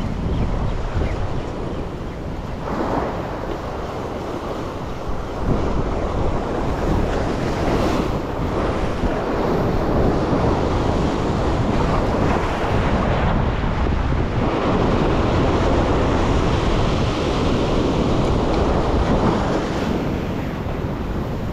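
Ocean surf washing over a rock ledge, rising and falling in swells, with wind buffeting the microphone.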